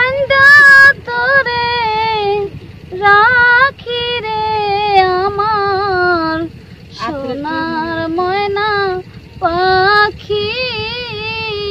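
A woman singing a Bengali folk song solo and unaccompanied, holding long notes with vibrato in phrases broken by short breaths.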